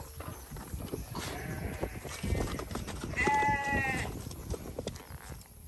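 A sheep bleats once, about three seconds in, a short wavering call. Low scuffling and rustling run underneath.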